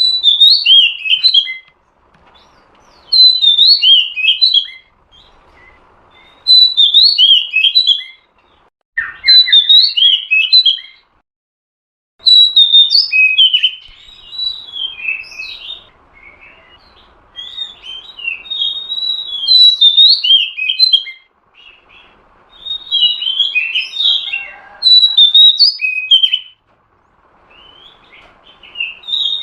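Female oriental magpie-robin (kacer) calling in bursts of rapid, bright chirping notes that repeat every few seconds with short pauses between. It is a female call of the kind used to rouse male magpie-robins into song.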